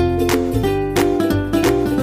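Upbeat background music of strummed ukulele and guitar with a steady beat.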